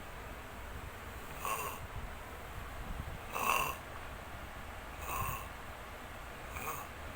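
A sleeper snoring: short snores come four times, about every one and a half to two seconds, the loudest about halfway through.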